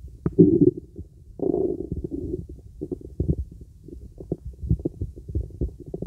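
Stomach and bowel sounds heard through a stethoscope: irregular low gurgles and soft pops, with longer gurgling runs about half a second in and again from about one and a half to two and a half seconds in.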